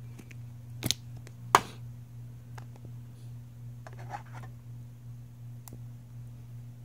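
Plastic phone case being pried off an iPhone: two sharp snapping clicks about one and one and a half seconds in, then a short rustle of handling around the middle. A steady low hum runs underneath.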